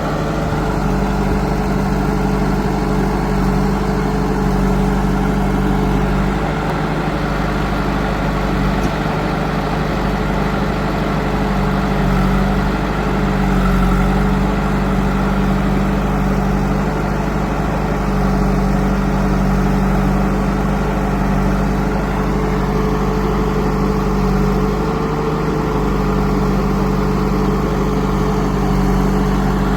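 Diesel engine of a backhoe loader or tractor running steadily at constant speed, with a steady hum over it.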